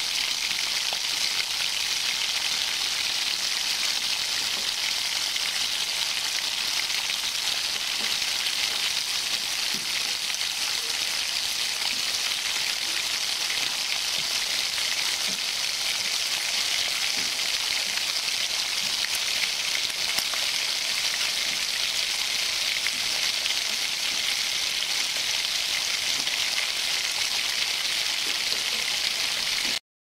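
Bacon frying: a steady, dense sizzle full of fine crackles that cuts off abruptly just before the end.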